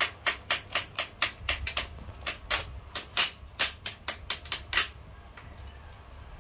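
Rapid sharp clicks, about four a second, from a hand tool working on the handlebar stem of a child's bicycle during assembly; the clicking breaks off briefly and stops about five seconds in.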